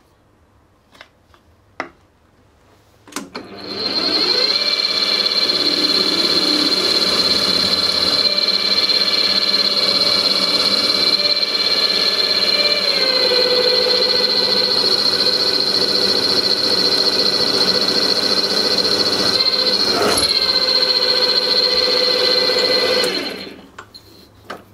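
Drill press starting up about three seconds in and running with a steady high whine while a 5 mm tapping drill bores the hole for an M6 grub screw in a metal pulley; the tone shifts about halfway through, and the machine is switched off and runs down a second before the end. A few light handling clicks come before it starts.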